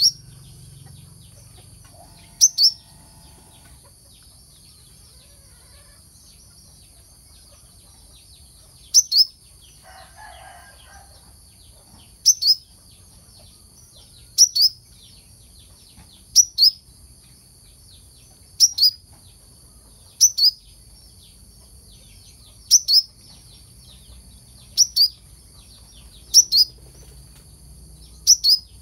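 Brown-throated sunbird (kelicap mayang kelapa) calling: sharp, high two-note chirps repeated about every two seconds, with one longer pause early on.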